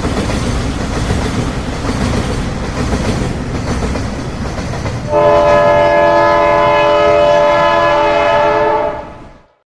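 A passing train's steady rumble of wheels on the track. About five seconds in, a train's multi-note air horn sounds as a held chord for about four seconds. Then all sound fades quickly and stops.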